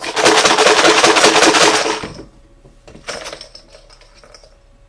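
Hard raffle-draw pieces rattling and clattering as they are shaken in a container, with a loud burst of rapid clicking for about two seconds and a shorter, quieter shake about three seconds in.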